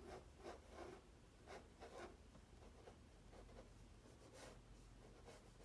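Ballpoint pen sketching on sketchbook paper: faint, quick scratchy strokes, several in the first two seconds and a couple more later.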